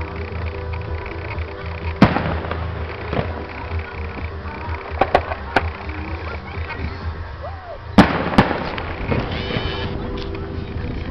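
Fireworks shells bursting overhead: about seven sharp bangs, the loudest about two seconds in and about eight seconds in, with a smear of crackle after the big ones.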